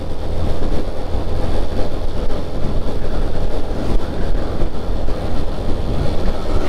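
Steady low rumble of a moving vehicle, engine and road noise, recorded from the vehicle as it drives along.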